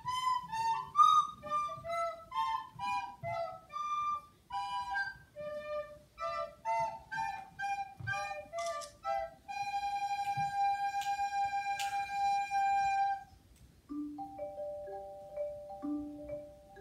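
A melody played live on small wind instruments: a quick run of short notes for about nine seconds, then one long held note, and after a short break two softer notes held together.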